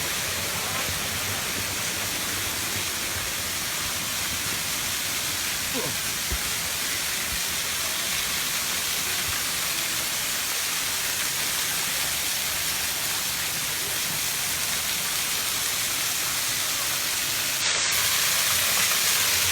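Water pouring over a dam spillway: a steady rushing noise that gets a little louder near the end.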